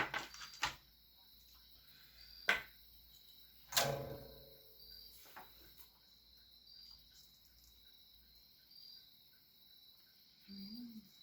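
A few clicks and knocks of parts and tools being handled on a workbench, the loudest about four seconds in with a short ring. After that it is quiet, with a cricket chirping faintly about every two seconds and a brief low hum near the end.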